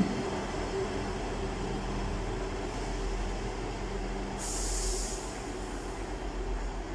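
Class 158 diesel multiple unit pulling away along the platform, its engine drone fading as it moves off. A short hiss comes about four and a half seconds in.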